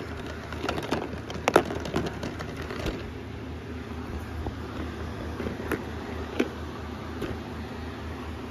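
Paper and cardboard of a DVD box set being handled: scattered light rustles and taps, the sharpest about one and a half seconds in, over a steady low hum.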